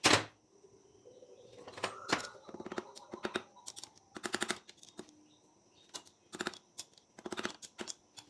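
Sharp metallic clicks and rattles from hand tools and small metal parts being handled, in short clusters, with one loud click at the very start.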